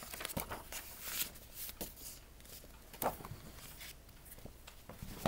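Rustling and light clicks of something being handled, with a sharper knock about three seconds in and another near the end.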